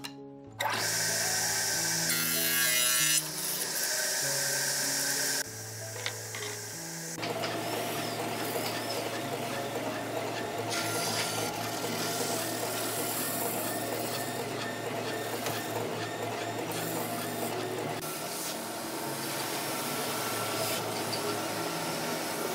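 A table saw's circular blade cutting through a plywood panel for about five seconds. Then a wide-belt sander runs steadily as panels feed through it on its conveyor belt. Background music plays underneath.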